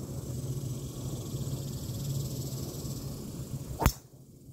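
Golf driver striking a ball off the tee: one sharp crack about four seconds in, over steady background noise.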